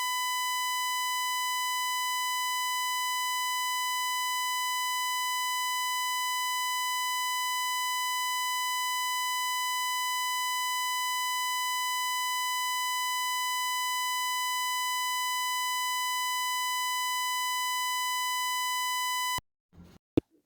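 A steady, unwavering electronic beep tone of about 1 kHz with a stack of overtones, held for nearly twenty seconds and then cutting off abruptly, followed by a couple of faint clicks. It stands in for the speech, which points to a fault in the recording.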